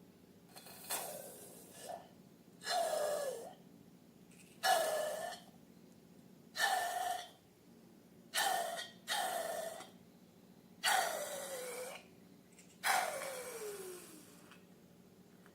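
Rubber balloons giving a run of about eight short squeaky, hissing bursts, most sliding down in pitch at the end, like air squeezed out through a balloon's neck.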